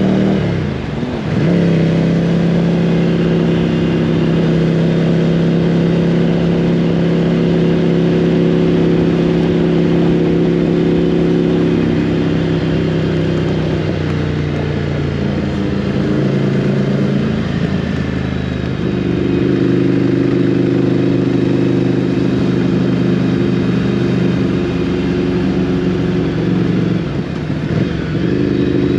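Motorcycle engine running hard at a steady, high pitch. Its note dips briefly and climbs back a few times as the rider eases off and gets back on the throttle.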